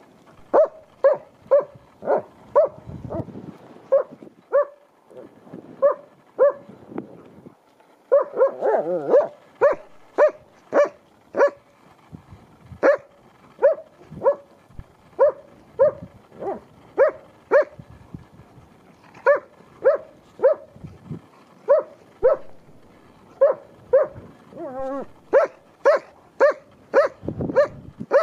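A dog barking repeatedly during rough play with another dog: short barks at about two a second, with brief pauses between runs.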